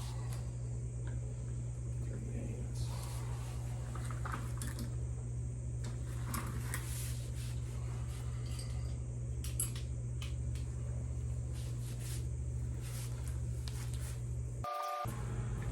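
Scattered light metal clinks of hand tools, a socket and wrench working the metric bolts of a motorcycle brake caliper, over a steady low hum like a shop fan. The sound briefly cuts out near the end.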